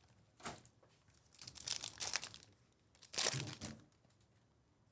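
Foil trading-card pack wrapper crinkling and tearing as it is torn open by hand, in three short bursts.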